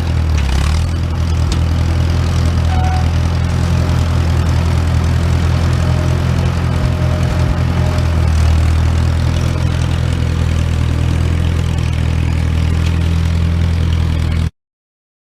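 An engine running steadily at a low, even pitch, like idling; the sound cuts off abruptly near the end.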